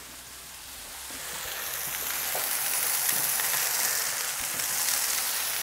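Smashed beef burger patties sizzling and spitting on a hot plancha griddle in a gas grill, a steady frying hiss that swells louder over the first two seconds and then holds.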